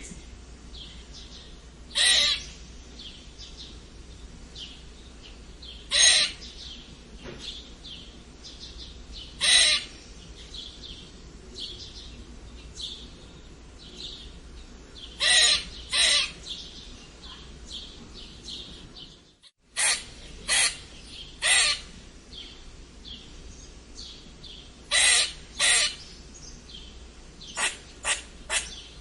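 Squirrel giving strange, harsh squeaking calls: about a dozen short loud squeaks at irregular intervals, some in quick pairs and a fast run of three near the end, over a constant background of faint bird chirps.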